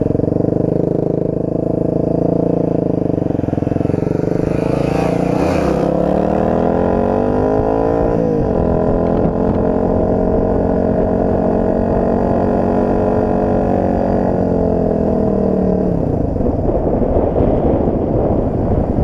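Dirt bike engine running, its note wavering and climbing with the throttle, dipping sharply about eight seconds in, then holding steady before turning rougher and less even near the end.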